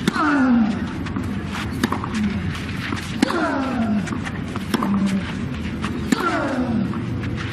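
A male tennis player's vocal cry with a falling pitch, heard three times about three seconds apart, over court and crowd noise with sharp clicks.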